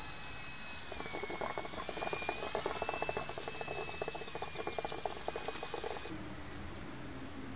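RC aerobatic model plane's motor whining in flight, its pitch dipping and rising with the throttle, with a dense crackle over it from about a second in; both cut off abruptly near the end.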